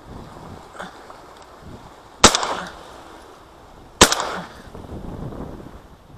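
Two shotgun shots about two seconds apart, each sharp and loud and trailing off briefly.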